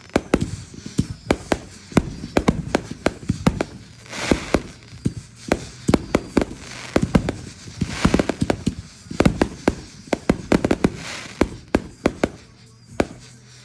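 Fireworks going off: a rapid run of sharp bangs and crackles, several a second, with bursts of hiss about four, eight and eleven seconds in. The popping thins out near the end.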